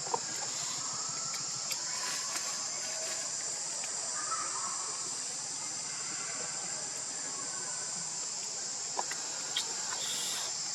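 A steady, high-pitched insect chorus drones on without a break, with a few faint clicks over it.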